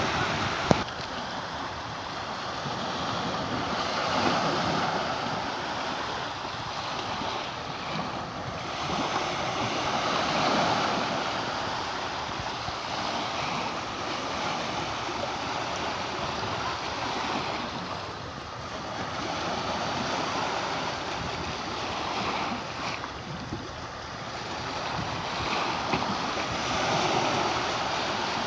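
Mediterranean surf washing onto the beach, the waves swelling and falling back every several seconds, with some wind on the microphone. A single sharp click about a second in.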